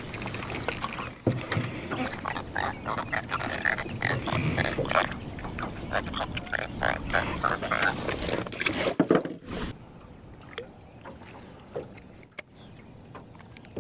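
A hooked fish splashing at the side of a small fishing boat as it is landed and unhooked, with irregular splashes, rustling and knocks of handling. About nine and a half seconds in the noise dies away to quiet, broken by one sharp click near the end.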